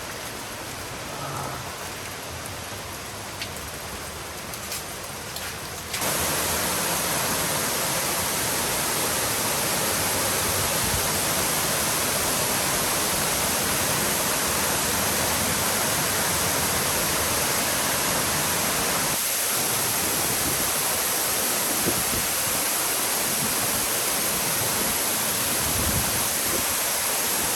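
Waterfall: falling water making a steady, even rushing noise. It is quieter for the first six seconds, then suddenly much louder.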